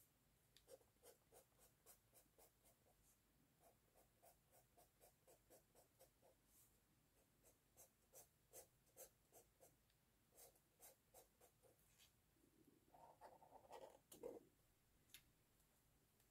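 Faint scratching of a felt-tip marker on a sketchbook page in quick, evenly spaced hatching strokes, about three a second. A louder, brief rubbing sound comes near the end.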